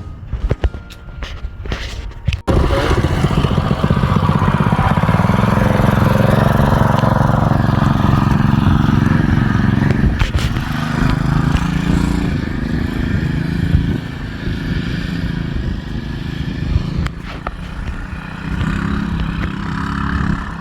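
A few sharp clicks, then the 212 cc engine of a Coleman CT200U-EX minibike running from about two and a half seconds in, loud at first and settling somewhat lower after the middle, its pitch shifting as the speed changes.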